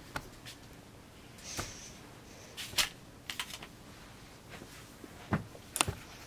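Light handling noise: scattered small clicks and rustles from makeup tools and a hand and arm moving close by, with a few sharper taps near the end.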